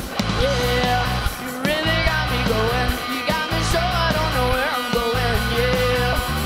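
Rock band playing live: a lead singer holding and bending sustained notes over electric guitar, bass and drums with a steady beat.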